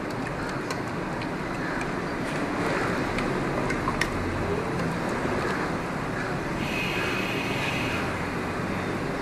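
A spatula stirring sugar syrup in an aluminium pot, with a few light clicks against the pot and a sharper one about four seconds in, over steady background noise.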